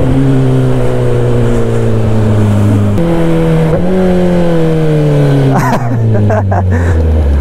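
Kawasaki ZX-10R inline-four superbike with an SC-Project exhaust running loudly, its revs slowly falling, jumping up about three seconds in, then falling again and dropping lower near the end.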